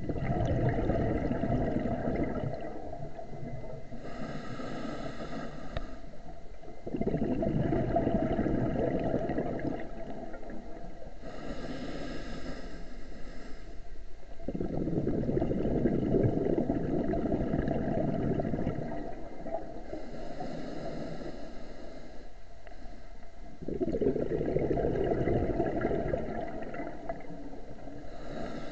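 Scuba diver breathing through a regulator underwater: a hissing inhale of about two seconds, then a longer, louder rush of exhaled bubbles. The cycle repeats about every eight seconds.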